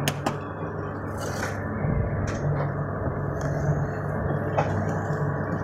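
Concrete-mixing machinery running with a steady low hum. Two sharp knocks come just after the start, and a few fainter clicks follow.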